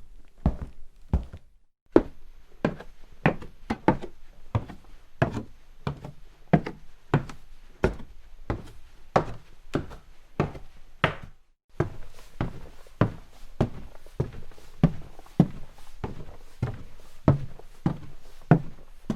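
Footsteps walking at a steady pace, each step a sharp thunk. The steps break off briefly about two seconds in and again near the middle, where one recording gives way to the next.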